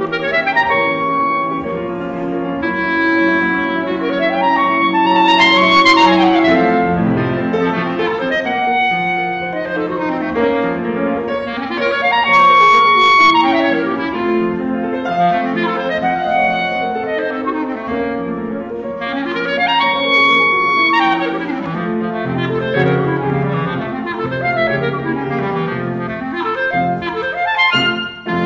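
Clarinet and grand piano playing classical chamber music, the clarinet in fast runs that sweep up and down over the piano accompaniment.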